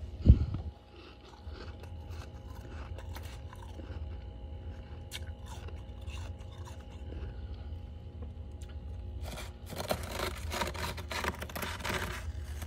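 Freezer frost crunching: a few scattered crackles, then a dense crackly run of crunches lasting about three seconds near the end. One loud thump just after the start is the loudest sound, and a low steady hum runs underneath.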